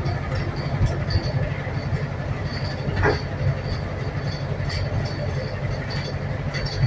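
Inside a Wright New Routemaster hybrid double-decker bus under way: a steady low rumble with a repetitive light clicking, which the uploader puts down to the diesel's fuel injectors. A brief noisy burst about three seconds in.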